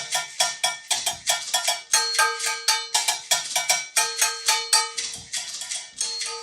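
Agogo bells struck in a quick, steady rhythm of several strikes a second, each strike ringing with a clear metallic pitch.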